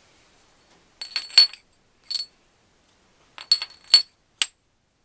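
Steel gearbox gear and splined shaft of an Adler MB250 clinking against each other as the gear is handled and slid onto the shaft by hand: a few sharp metallic clinks about a second in, one near two seconds, and a quicker run of clinks near the end, each with a brief ring.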